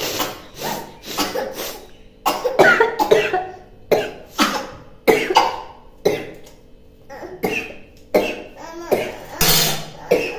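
A woman coughing again and again in short fits, about a dozen coughs, set off by the fumes of chillies burning in the pan. The loudest and longest burst comes near the end.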